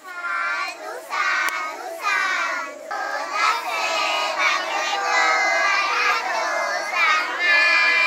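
A large group of young children chanting a worship recitation together in unison, their many voices in phrases with short breaks in the first few seconds.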